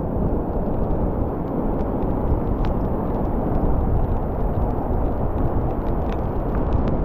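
Wind rumbling on the microphone over the steady wash of surf, a constant low noise with a few faint ticks.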